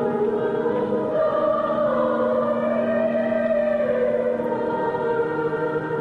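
Choir singing slow church music, voices holding long notes that shift slowly in pitch.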